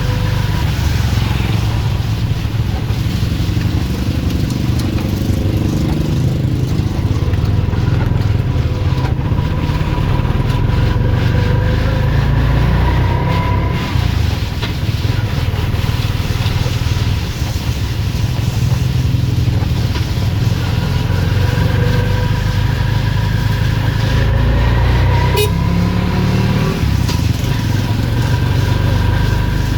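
Motor vehicle engines running steadily, a continuous low rumble with a faint whine that drifts slightly in pitch. There is a single sharp click about 25 seconds in.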